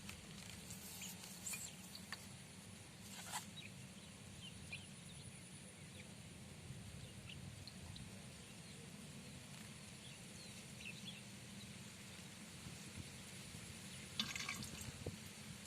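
Quiet riverside ambience: a low steady rumble with faint scattered bird chirps and a few sharp clicks.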